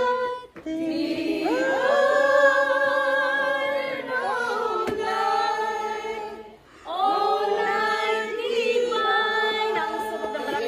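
A group of men and women singing together unaccompanied in long held phrases, with short breaks for breath near the start and about two-thirds of the way through.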